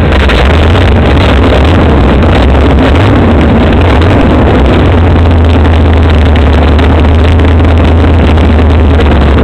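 MerCruiser V8 engines of a Cougar 33 powerboat running loud and steady just after starting, out of the water on the trailer with the stern drives in buckets of water. The deep engine note wavers for the first few seconds, then settles.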